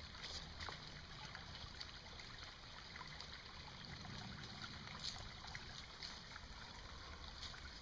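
Faint, steady trickle of a shallow mountain creek that is almost dried up, with a few soft clicks.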